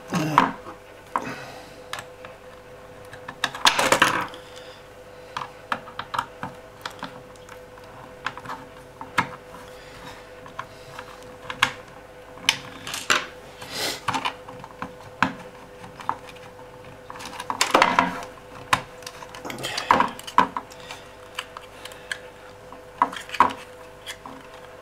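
Irregular plastic clicks, knocks and rattles of a Turnigy 9X transmitter's plug-in RF module being worked loose from its rear bay by hand, with several louder knocks. A faint steady hum sits underneath.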